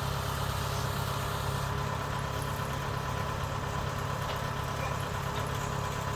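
Combine harvester engine running steadily at an even pitch.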